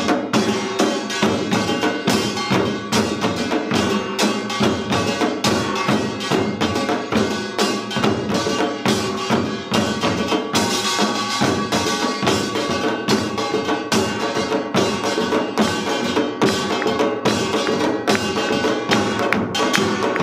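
Korean samul nori ensemble playing a seated Yeongnam-style piece: the kkwaenggwari's metallic clanging over janggu hourglass drums and buk barrel drums, with a large jing gong ringing under it. The strokes come thick and fast, without a break.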